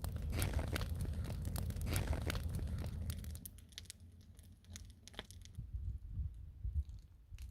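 Crackling and rustling handling noise, dense irregular clicks over a low rumble, thinning out after about three seconds.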